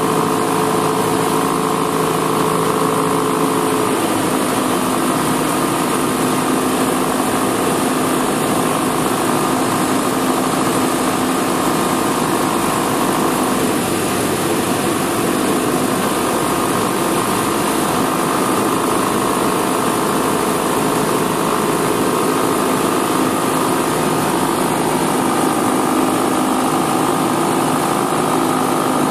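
Cessna 172S's four-cylinder Lycoming engine and propeller running steadily on final approach, heard inside the cabin over a constant rush of airflow hiss. The engine's pitch shifts slightly a few seconds in.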